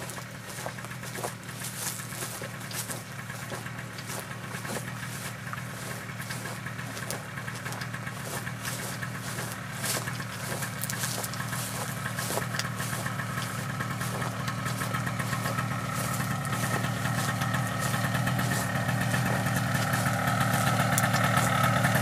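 A small engine idling steadily, growing louder toward the end.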